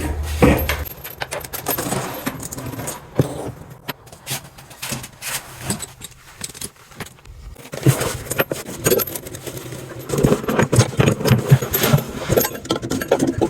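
Irregular clinking, clicking and knocking of small metal parts and tools being handled, busier in the second half.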